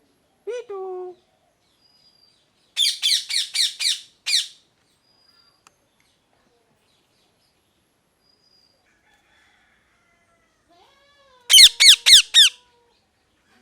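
Rose-ringed parakeet screeching in two bursts of rapid shrill calls, about six in quick succession a few seconds in and four or five more near the end, after a short lower call just at the start.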